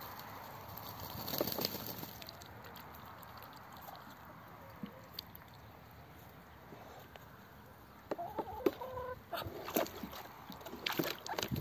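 Muscovy ducks dabbling in a small plastic tub of water: faint sloshing, then a few short soft clucking calls about two thirds of the way in and louder splashing near the end.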